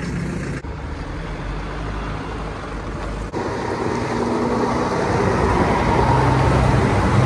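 Heavy lorry's diesel engine running as it drives slowly past close by, getting louder in the second half. The sound changes abruptly twice early on.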